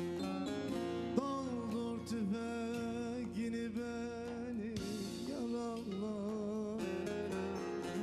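Bağlama (long-necked Turkish saz) played with rapid plucked strokes, joined about a second in by a man's voice singing one long wavering, ornamented line of a Turkish folk song. The voice drops out about a second before the end while the bağlama carries on alone.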